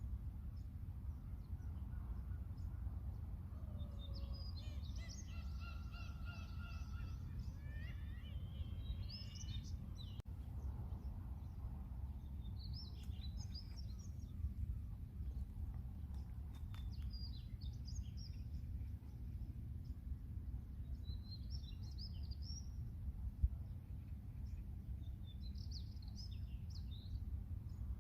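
Birds calling at a harbour, including a series of harmonic gull-like calls a few seconds in and short high chirps scattered through, over a steady low rumble.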